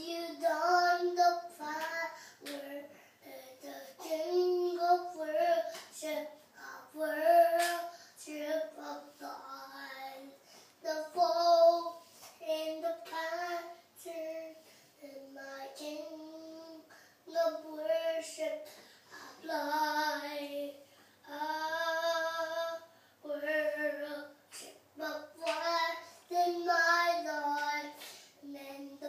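A young boy singing in short phrases, some notes held for a second or two.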